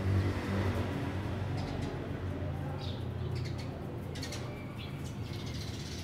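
Sparrows chirping in short high calls over a steady low background hum.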